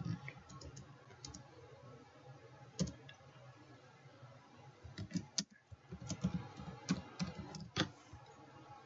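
Computer keyboard typing: scattered keystrokes at first, then a quicker run of keys from about five seconds in.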